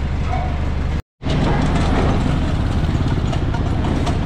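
Street traffic and a motor vehicle engine running, a steady low rumble that drops out completely for a moment about a second in.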